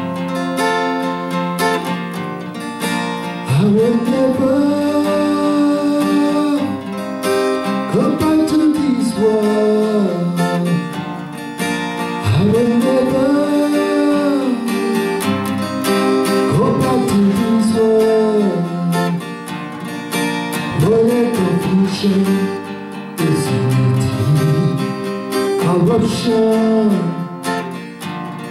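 Acoustic guitar strummed steadily, alone at first; a few seconds in, a man starts singing over it in long, held phrases.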